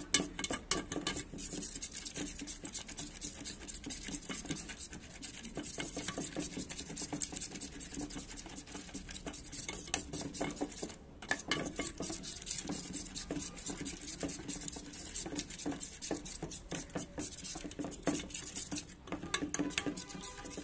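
Metal wire whisk beating a thick rice-and-gram-flour batter in a metal bowl: rapid wet clicking and scraping of the wires against the bowl, with a short pause about eleven seconds in.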